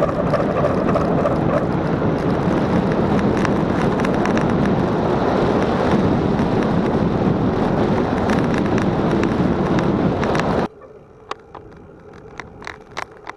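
Steady wind rush and road noise on the microphone of a camera mounted on a moving bicycle, cutting off suddenly near the end; afterwards only a few light clicks.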